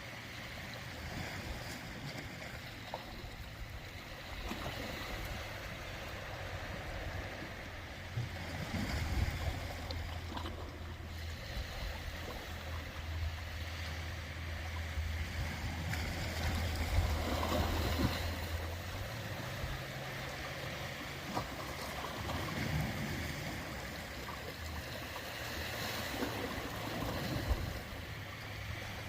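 Ocean waves washing in and out, swelling every few seconds, over a steady low rumble.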